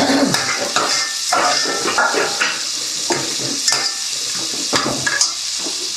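Bottle gourd (doodhi) pieces sizzling in a pan while a spoon stirs and scrapes them, with a scrape about every half second to second over a steady sizzle.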